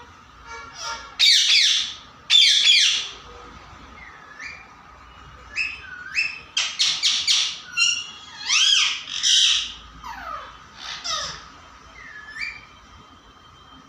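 Pet parrot calling: two loud, drawn-out calls about a second in, then a string of short chirps, rising whistles and quick chatter, with more loud calls a few seconds later.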